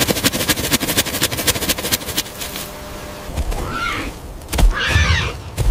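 A Cape porcupine's quills rattling: a fast dry run of many clicks for the first couple of seconds, the sound of a porcupine shaking its quills in defence. Near the end, two short growls, each with a low rumble and a rough rasp above it.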